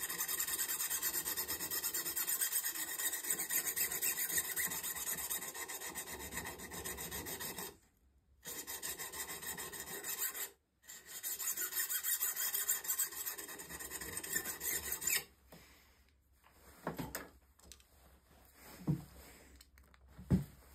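Diamond honing paddle rubbed rapidly back and forth along the steel bevel of a Stubai drawknife, a dense scraping rasp, in the first stage of sharpening that works off the factory machining marks. The rasping breaks off briefly about 8 and 10.5 seconds in and stops about 15 seconds in, followed by a few light knocks.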